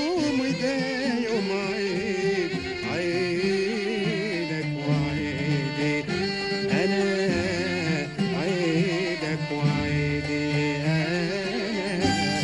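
Traditional Gulf Arabic music played live by a small ensemble of oud, violin and qanun.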